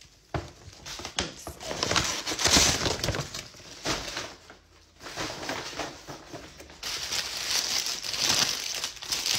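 Paper sandwich wrappers rustling and crinkling as they are handled and opened, in irregular bursts with a short lull about four seconds in.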